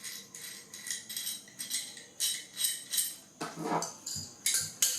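Steel hand tools clinking and rattling against each other as they are handled, a quick uneven run of light metallic clicks and jingles.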